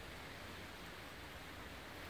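Faint, steady hiss of rain falling outside.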